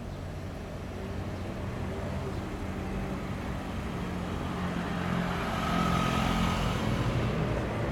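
Low rumble of road traffic, slowly growing louder and loudest about six seconds in.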